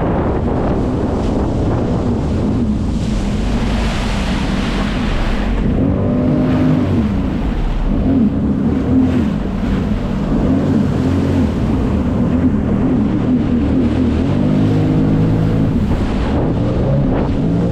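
Personal watercraft (jet ski) engine running under way, its pitch rising and falling as the throttle changes, with water rush and wind buffeting on the microphone.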